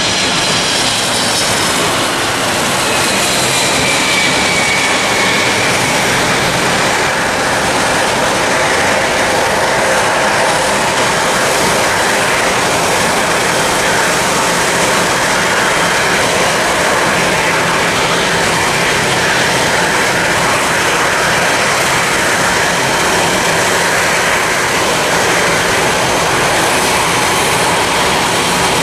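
Boeing 747-400 jet engines passing low on landing approach: a whine that falls in pitch over the first few seconds, then a steady, loud jet rush through touchdown and the landing roll.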